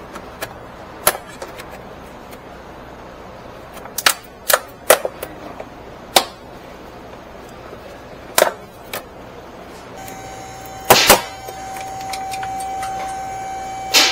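Sharp clicks and knocks of tools and parts being handled as components are removed from a Jeep Wrangler's engine bay, at irregular intervals with a double knock about eleven seconds in. About ten seconds in, a steady mid-pitched whine with overtones starts and continues.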